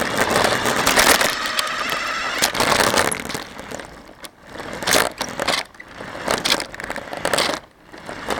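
RC car driving, heard from a camera mounted on it: a loud rough rushing and rattling with many sharp knocks and crackles, swelling and dropping several times.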